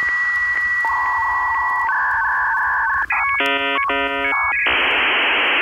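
Electronic background music made of synthetic beeps: a held high tone, then a run of repeated short beeps, a few buzzy chords about three and a half seconds in, and a steady hiss near the end.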